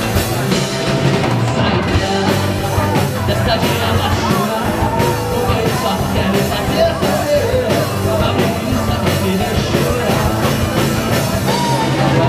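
Rock band playing live on amplified electric and acoustic guitars, with drums keeping a steady beat.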